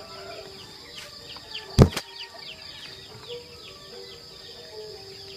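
Night-time chorus of insects: a steady high chirring with a run of short falling chirps repeating a few times a second. A single sharp knock comes just under two seconds in.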